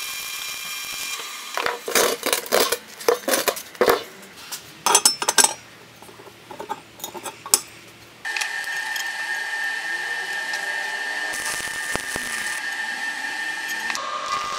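Electric arc welding on steel, a steady crackling hiss with a thin buzzing tone. From about two to eight seconds in it gives way to a run of sharp metal knocks and clatter, and the welding hiss comes back at about eight seconds in.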